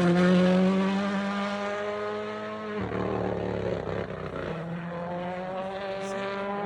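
Rally car engine pulling away after passing, its note climbing as it accelerates and fading into the distance. The note breaks up briefly about three seconds in, then climbs again.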